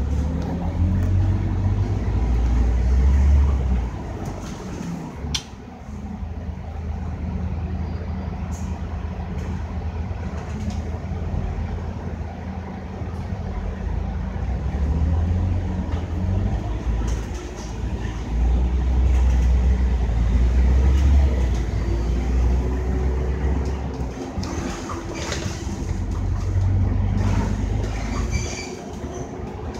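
Scania K310UD double-decker bus on the move, its diesel engine droning low and swelling several times as it pulls harder, then easing back. A few short clicks and rattles are heard in between.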